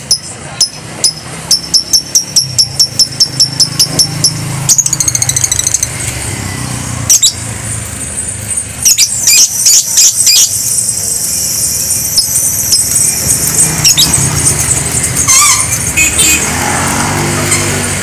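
Caged lovebird calling: a string of sharp, high chirps that speed up into a fast trill, followed by more bursts of high chirping and trilling. Steady street traffic hum underneath, with a motorcycle passing near the end.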